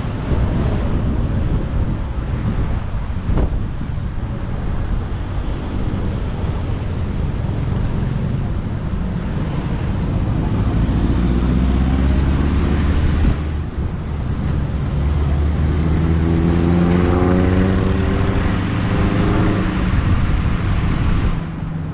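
Wind and road noise rushing past a moving electric scooter in traffic, with a low rumble. In the second half a motor note rises steadily in pitch as a vehicle speeds up.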